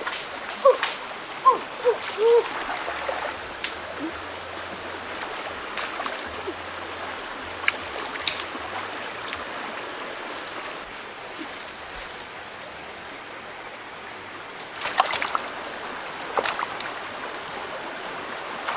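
Shallow rocky stream running steadily over stones, with a few short splashes in the water about halfway through and again near the end.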